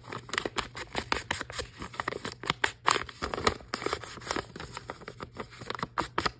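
Printed paper journal pages being handled and shuffled: irregular rustles, taps and small clicks of paper.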